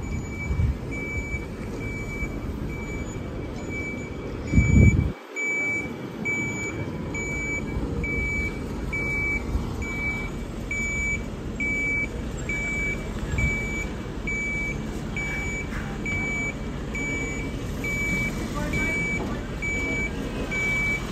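Heavy lorry's warning alarm beeping steadily, a little over once a second, over the low running of the truck's engine as the abnormal-load low-loader manoeuvres. A brief loud low rumble about four and a half seconds in cuts off suddenly.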